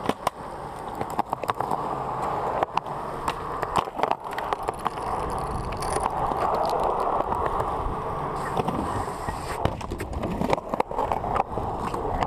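Skateboard wheels rolling on rough concrete, a steady grinding rumble, with frequent sharp pops and clacks as the board's tail and wheels strike the ground during flatground tricks.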